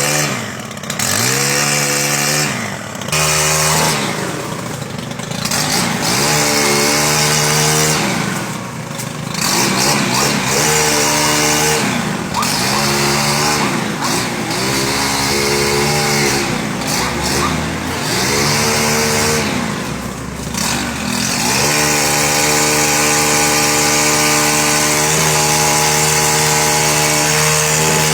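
Chainsaw engine revving up and dropping back again and again, about every three seconds, then held at high revs for the last several seconds while cutting down a small tree.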